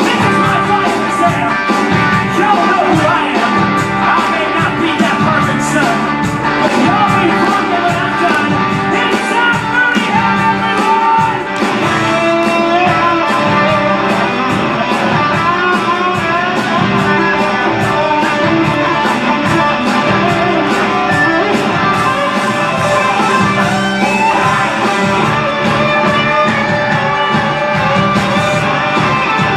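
A rock band playing: electric guitar over a steady drum beat, with singing.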